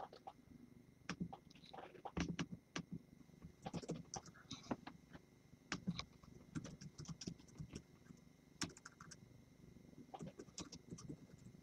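Faint, irregular clicking and tapping of typing on a computer keyboard.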